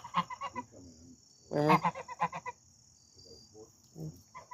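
Sebastopol goose calling, agitated enough that its owner calls it angry: a loud honk about a second and a half in, followed at once by a quick run of short notes, with softer calls near the end.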